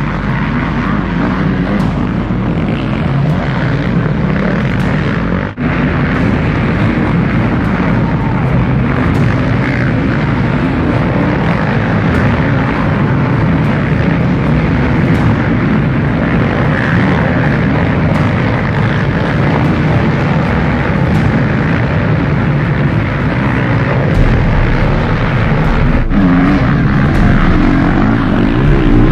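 Several motocross bike engines racing past, their pitch rising and falling with throttle through the turns. There is a brief dropout about five seconds in.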